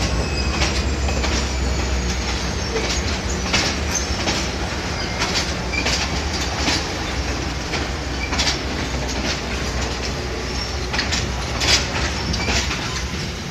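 Passenger train cars rolling across a steel truss bridge: a steady low rumble with irregular clacks of wheels over the rail joints, and a few brief faint wheel squeals.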